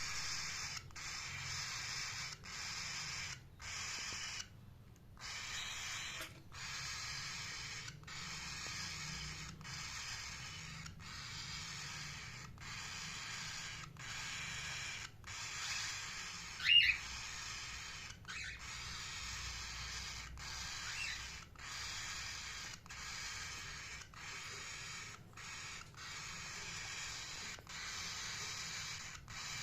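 Indian ringneck parrot giving a single short, loud call about seventeen seconds in, with a faint chirp a few seconds later. Under it runs a steady hiss that drops out briefly every second or two.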